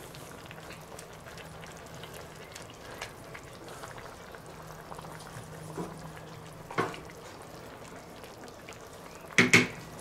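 Stew bubbling and simmering in a cast-iron Dutch oven, stirred with a wooden spoon, with a steady fine crackle. There is one knock about seven seconds in and two sharper, louder knocks close together near the end, as the wooden spoon strikes the pot.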